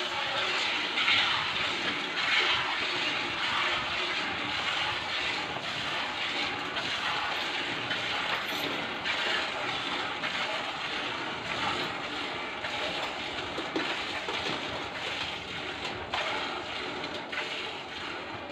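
Water buffalo being hand-milked into a steel pail: a continuous run of milk squirts hissing into the bucket.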